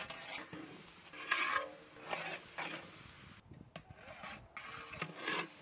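A ladle scraping and stirring in a cooking pot: irregular rasping strokes, the loudest about a second and a half in.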